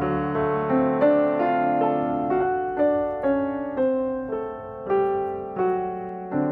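Background music: a slow piano melody, single notes struck about twice a second, each ringing and fading.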